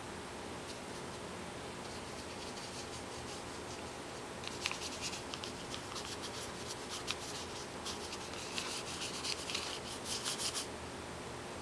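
Quick strokes scratching and rubbing across paper while a gouache sketch is made, in runs from about four seconds in until near the end, over a steady low hiss.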